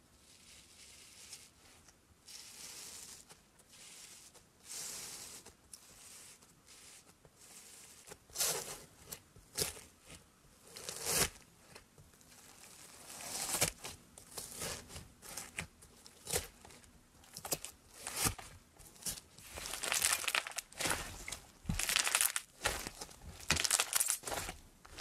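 Slime being pressed and squished by hand, including slime topped with foam beads (floam). It is soft at first, then from about eight seconds in comes crunchy crackling and popping, growing denser toward the end.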